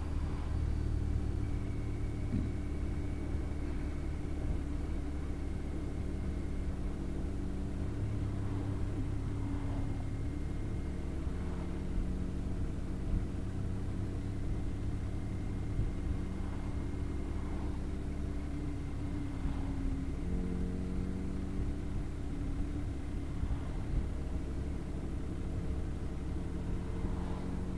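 Motorcycle engine running at road speed, heard from the bike being ridden, over a low rumble of wind and road noise; its note shifts a few times with throttle and gear changes, most clearly about twenty seconds in.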